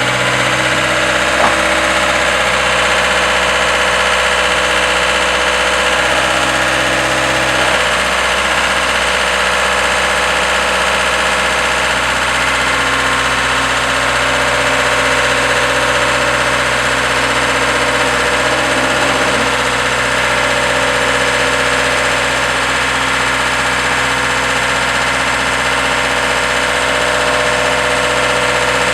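Diesel engine of a DIECI L3500 self-loading concrete mixer running steadily, its note shifting slightly a few times.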